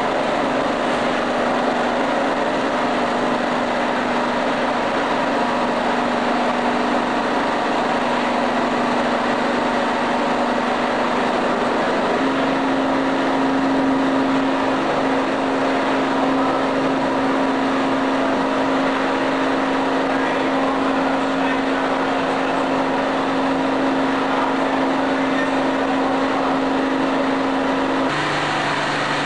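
Oil-free rotary piston compressor running with a steady hum over a loud rushing noise. Its tone steps slightly higher about twelve seconds in and drops to a lower tone near the end.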